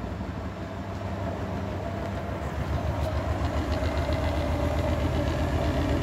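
Grundig front-loading washing machine's drum spinning up in a short intermediate spin, with a steady motor whine over a rhythmic low thumping that grows louder as the speed builds. The load of towels is off-balance, so the machine wobbles as it spins.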